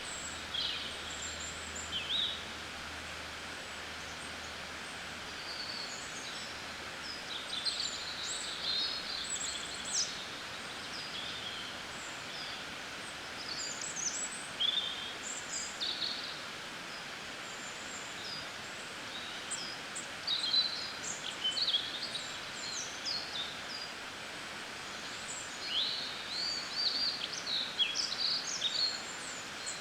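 Mixed spring birdsong: several small birds chirping and trilling in short, high phrases, over a steady hiss of flowing river water.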